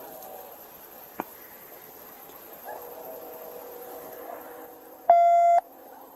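A sharp click about a second in, then a loud, single-pitched electronic beep lasting about half a second near the end, over a faint steady hum.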